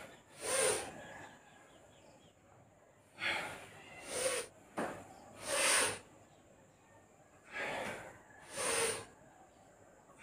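A man's forceful breathing during standing yoga stretches: six short, loud breaths in and out, some in pairs about a second apart, with quiet gaps between. A brief click near the middle.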